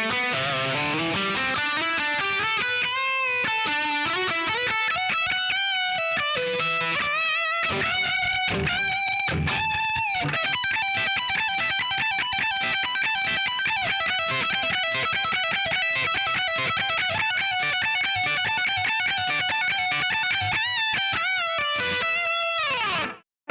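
Electric guitar played through a Line 6 Spider V amplifier on an overdriven tone. It plays a lead line of sustained notes with bends and vibrato, then holds a long ringing note. Near the end it slides down and cuts off suddenly.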